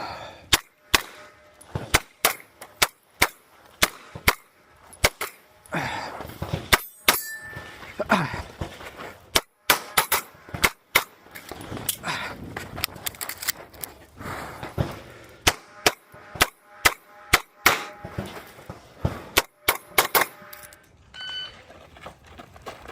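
Kimber 2K11 pistol fired in quick strings of shots with short pauses between, dozens of shots in all, some followed by a metallic ring.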